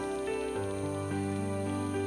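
Background music: sustained pitched notes in slowly changing chords, with a low bass note coming in about half a second in.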